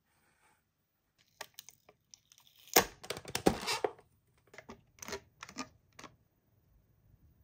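Clear plastic clamshell packaging being pried open by hand: a run of sharp clicks and crackles, loudest about three seconds in as the lid comes free. Lighter clicks and crinkles follow as the vinyl figures are taken out of the plastic tray.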